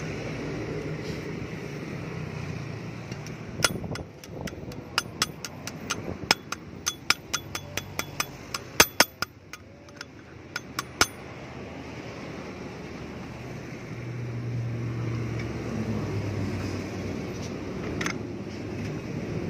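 A run of sharp metallic clicks, two or three a second at uneven spacing, as steel pliers grip and slip on a bolt nut of a rusty motorcycle rear sprocket; they start about four seconds in, stop after about seven seconds, and one more comes near the end. A steady low rumble lies underneath.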